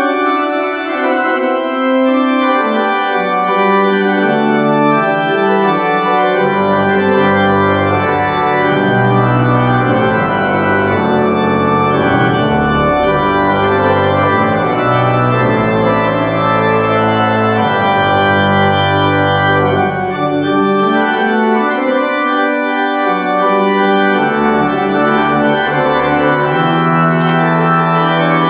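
Church organ playing slow sustained chords on the manuals, with deep pedal bass notes coming in about six seconds in and dropping out around twenty seconds.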